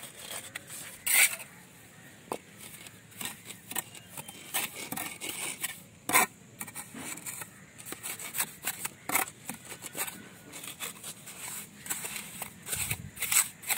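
Steel mason's trowel scraping and dabbing wet mortar into the joints and across the top of a brick course: a run of short scrapes and taps, with sharper knocks about a second in and about six seconds in.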